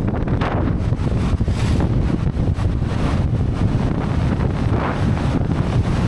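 Strong wind buffeting the microphone: a loud, steady low rumble with a few gusty swells.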